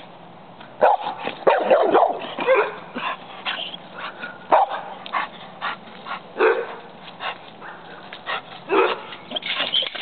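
Dogs barking in irregular bursts: a quick run of barks one to three seconds in, then single barks every second or so.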